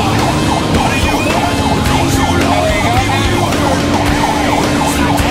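Fire apparatus siren on a fast yelp, about four cycles a second, heard from inside the cab. A steady lower tone and the truck's engine rumble run beneath it.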